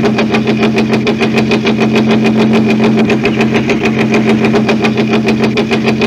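Engine running with a rapid, evenly spaced knocking over a steady hum: engine knock (detonation or pinging), the sign of the air-fuel mixture igniting too early or unevenly in the cylinders.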